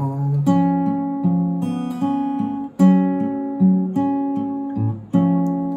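Acoustic guitar strumming chords, each chord left to ring and fade, with single bass notes picked between the strums. The chords are struck about half a second in, near three seconds and again about five seconds in.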